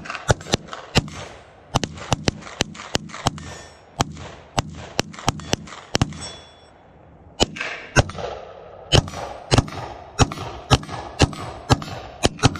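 Rapid gunfire from a rifle and a handgun: a string of single shots, two or three a second. There is a pause of about a second and a half around the middle.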